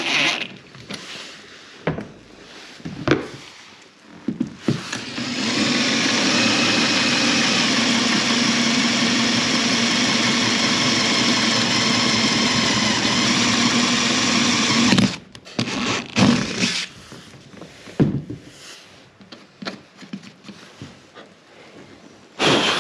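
Power drill with a large twist bit boring a hole through a boat's deck, running steadily for about ten seconds and stopping abruptly. Scattered knocks and handling clicks come before and after it.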